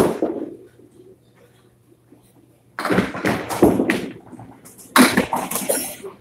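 Candlepin bowling alley: a sharp knock with a ringing tail at the start, then two loud stretches of clattering about three and five seconds in, as a ball is bowled and candlepins crash.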